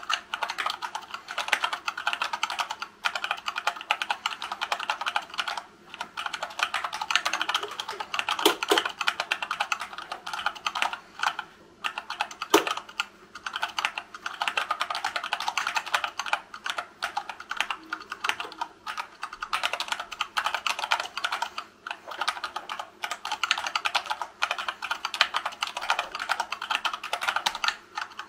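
Steady fast typing, about 60 words a minute, on a hand-wired Dactyl Manuform split keyboard. Its Gateron Brown tactile switches are silicone-lubed and sit in a wood-filament printed case. The keystrokes run in a dense clatter, broken by brief pauses every few seconds.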